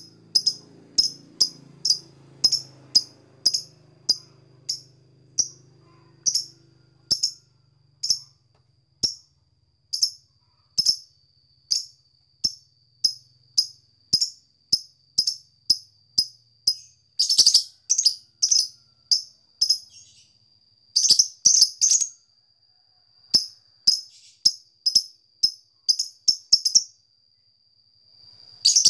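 Fischer's lovebird giving its 'ngetik' ticking call: a long run of short, sharp, high chirps at about two a second, bunched tighter in places and broken by a few brief pauses.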